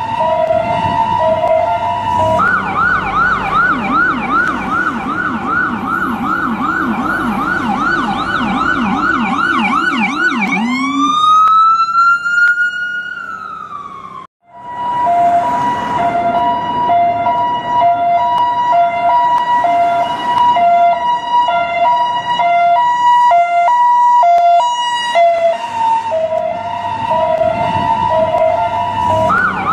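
US ambulance siren cycling through its modes. It opens with a two-note hi-lo alternation, switches about two seconds in to a rapid yelp of about three sweeps a second, then gives one rise and slow fall that cuts out briefly near the middle. The hi-lo alternation then returns, and the yelp starts again at the very end.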